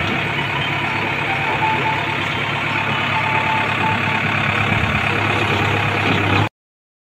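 JCB 3DX backhoe loader's diesel engine running steadily while the backhoe arm and bucket work, with faint short high tones coming and going. The sound stops abruptly about six and a half seconds in.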